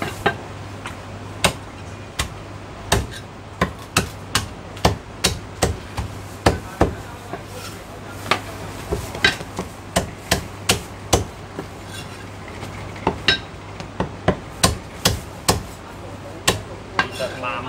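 Heavy Chinese cleaver chopping a cooked Zhanjiang chicken on a thick round wooden chopping block: sharp, irregular chops at about two a second, some in quick pairs, as the blade cuts through meat and bone into the wood.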